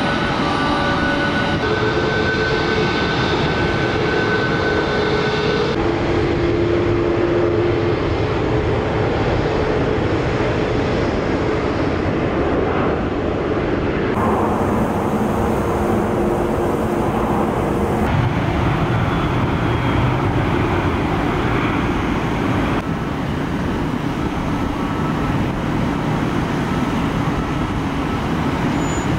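Steady roar of jet airliner engines around an airport apron, with a few faint steady whining tones; the roar shifts abruptly in tone several times.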